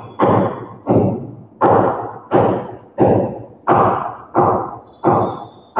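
Steady rhythmic thudding, about three strikes every two seconds, each one ringing out briefly in the room before the next. Faint thin squeaks near the end, while a marker writes on the whiteboard.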